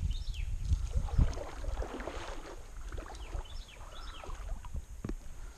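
Water sloshing and lapping around a kayak under a steady low rumble, with birds chirping in short falling notes throughout.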